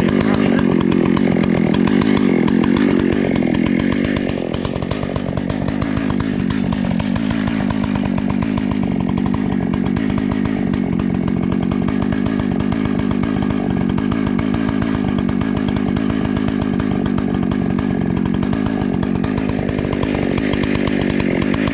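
Husqvarna 288XP two-stroke chainsaw running at high revs, cutting through a tree trunk to fell it. Its sound drops slightly about four seconds in, then holds steady.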